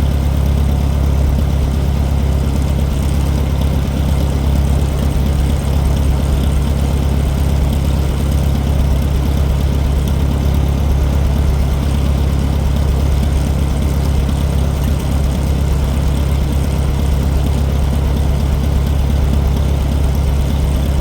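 Farmall 400 tractor engine idling steadily, a constant low hum.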